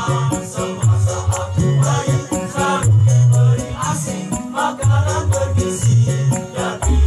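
A group of boys singing together over backing music with a strong bass line and a steady percussive beat.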